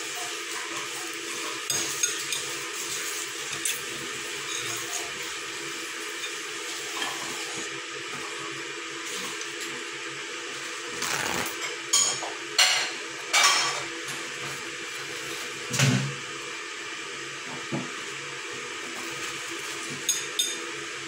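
A child eating noodles: slurping strands in and chewing, with a plastic fork scraping and clicking against a ceramic bowl. A few louder slurps come just past halfway through, over a steady background hum.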